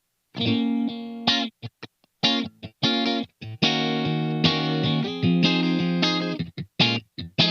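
SLX Hawk Classic 22 HSS electric guitar played through distortion in a stop-start riff: short stabbed chords and longer held chords, each cut off abruptly.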